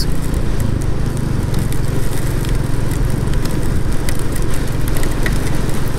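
Royal Enfield Classic 350's single-cylinder engine running steadily under way, mixed with an even rush of wind and road noise.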